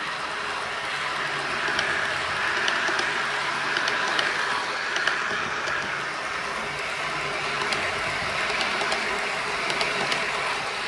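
Model train running along the track: a steady rolling whirr of the wheels and motor, with scattered light clicks, as a double-deck passenger train passes close by.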